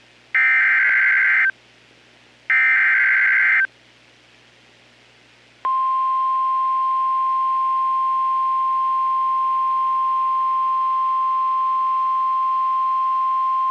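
EAS alert signalling from NOAA Weather Radio: two one-second bursts of screeching SAME digital header data, then after a short pause the steady single-pitch 1050 Hz weather radio alert tone, starting about five and a half seconds in. It marks the start of a new warning broadcast, here a severe thunderstorm warning.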